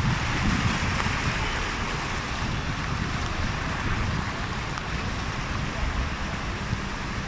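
A car's tyres ploughing through standing floodwater on a flooded road: a steady rushing, sloshing splash over a low rumble.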